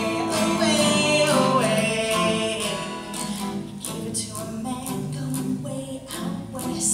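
A woman singing with a strummed acoustic guitar. Her voice holds and bends a long note over the first few seconds, then drops back while the guitar strums on.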